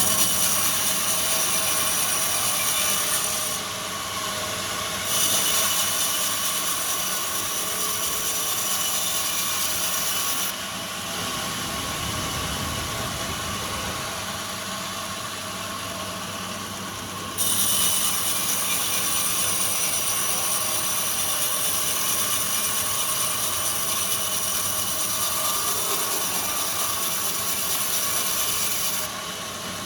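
Sawmill machinery running steadily while its saw cuts through a large log. A bright, high-pitched hiss comes and goes three times over the steady drone of the machine.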